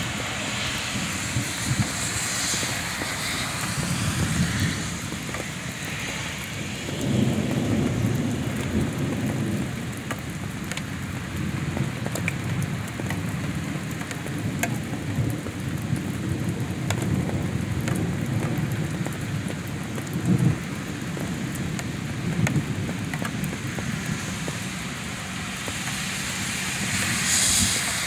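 Heavy rain pouring steadily onto wet pavement, with a low rumble that swells and fades several times.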